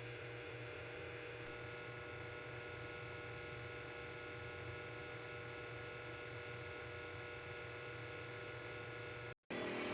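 Electric fan motor running steadily with a low hum and an even whir. Near the end it cuts off abruptly, and a louder whir starts straight after.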